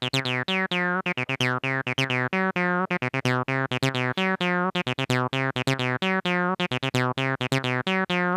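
Behringer TD-3 (TB-303 clone) bass synth playing a programmed acid pattern of fast, even notes, about four or five a second, the resonant filter sweeping down on each note. The Accent knob is being turned. The pattern cuts off suddenly at the end.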